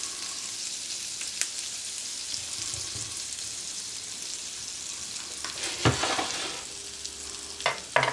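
Potato and cheese patties sizzling in a hot, margarine-greased grill pan: a steady frying hiss. A few sharp knocks cut through it, the loudest about six seconds in.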